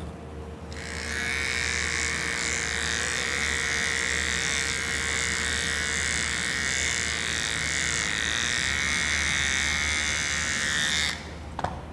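Small cordless pet trimmer buzzing steadily as it shaves the hair off a Shih Tzu's paw pads. It switches on about a second in and cuts off near the end.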